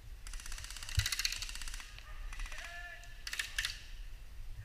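Airsoft guns firing on full auto: three bursts of rapid, evenly spaced clicking, the first about a second and a half long and the next two shorter.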